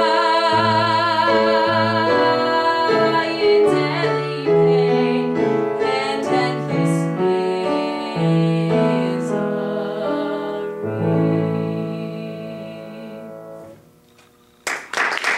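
A 14-year-old boy sings a long, high note with vibrato over piano accompaniment. His voice stops about three seconds in and the piano plays on alone, fading out to end the piece. Applause starts just before the end.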